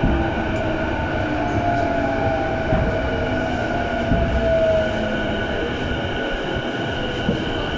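Interior running sound of a JR East E233-0 series electric train: steady rumble of wheels on track with a motor whine that falls slowly in pitch as the train slows for a station stop.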